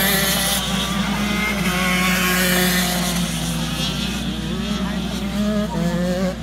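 Several racing kart engines running at once, with pitches rising and falling as they accelerate and lift through the corners. A close kart on the wet track adds a bright hiss at the start that cuts off about half a second in.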